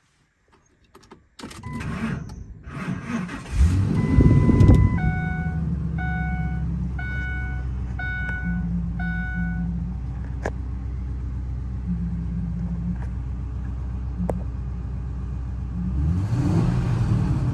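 2004 Ford F-250 Super Duty pickup's engine started from inside the cab: it cranks briefly and catches about four seconds in, then idles steadily. A dash warning chime sounds as it starts and beeps repeatedly for a few seconds, and the engine is revved once near the end.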